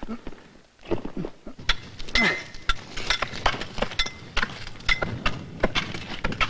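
A hand tool chopping at blocks of glacier ice: sharp clinking strikes about two or three a second, some with a brief ring. The strikes begin about a second and a half in.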